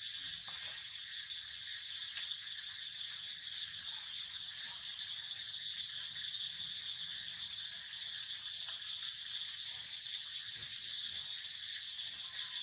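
Steady, shrill chorus of insects, a dense high buzzing with a fast pulse, broken by a few brief clicks.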